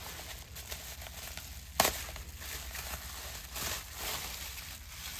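Plastic bubble wrap crinkling and rustling as it is pulled open around a package, with one sharp snap a little under two seconds in.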